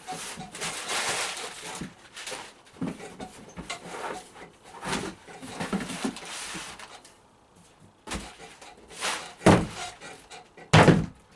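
A plastic DeWalt tool box being unpacked and opened by hand: rustling and scraping with scattered clicks, then two loud knocks near the end as the box is handled.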